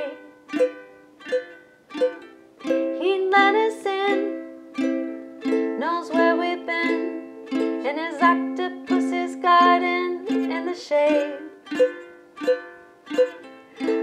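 Ukulele strummed in an even rhythm, about three strums every two seconds, four strums to each chord.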